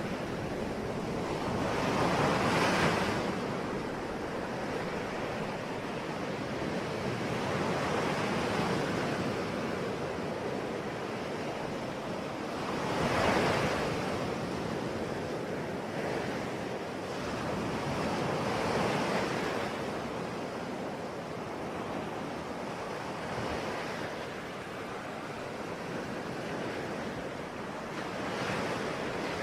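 Ocean surf: waves breaking and washing in a steady rush that swells every five or six seconds, loudest a little before halfway through.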